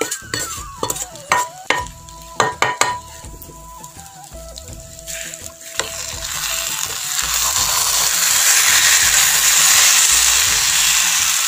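A metal spatula scrapes and knocks roasted coconut out of one non-stick pan into another, with several sharp knocks in the first three seconds. Then the spatula stirs the thick coconut curry in the hot pan, and a steady sizzle builds from about six seconds in.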